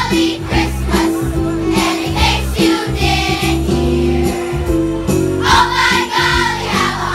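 Children's choir of second and third graders singing together over instrumental accompaniment.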